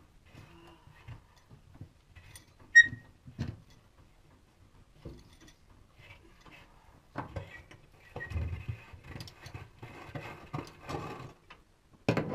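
Hand-tool work on a steel floor bolt: scattered metal clicks and knocks, then rattling and scraping. About three seconds in, one sharp ringing clink of metal on metal is the loudest sound.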